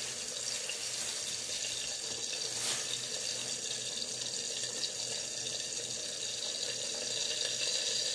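Bacon sizzling in a lidded skillet: a steady, even, high-pitched frying hiss.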